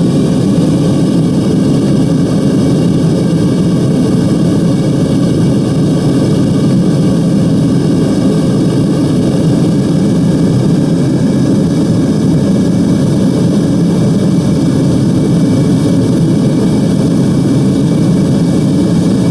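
Devil Forge melting furnace's torch and blower running, a loud steady rushing noise with no change in pitch.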